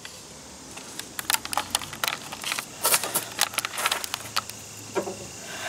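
Scattered light clicks and clinks of handling, irregular and fairly quiet, with no steady machine sound.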